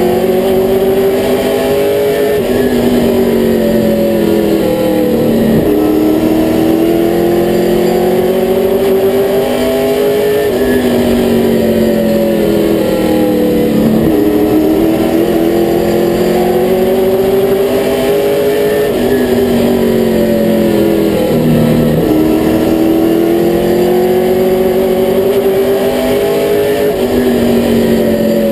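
Limited late model race car's V8 engine at racing speed, heard from inside the cockpit: the revs climb for several seconds on each straightaway and drop back as the driver lifts into each turn, about every eight seconds.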